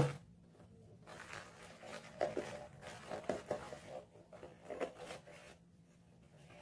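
Rigid cardboard box being handled by hand: a sharp knock right at the start, then irregular scraping, rustling and light taps as the lid and inner tray are slid and set down.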